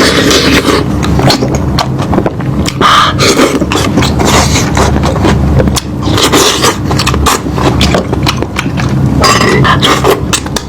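Close-miked eating: a person chewing and gnawing meat, with a dense run of sharp mouth smacks and clicks.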